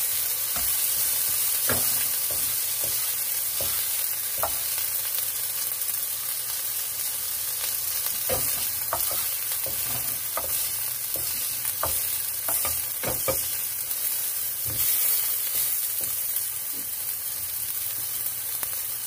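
Chopped onions and bell peppers sizzling in a nonstick frying pan while a slotted spatula stirs and scrapes them, with scattered light knocks of the utensils against the pan.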